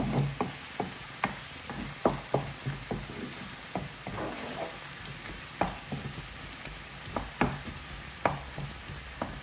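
Chopped onion and tomatoes frying gently in oil in a non-stick frying pan, a steady low sizzle, while a wooden spatula stirs them, scraping and knocking against the pan about once or twice a second. The tomatoes are cooking down until soft.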